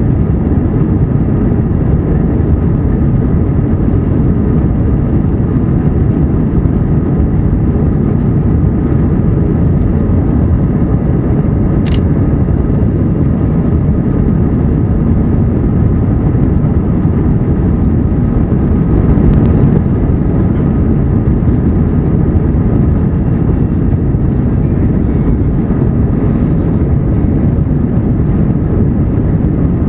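Airbus A321 cabin noise from a window seat behind the wing: the jet engines and airflow as a loud, steady low rumble and rush that neither rises nor falls. A faint click sounds about twelve seconds in and again around twenty seconds.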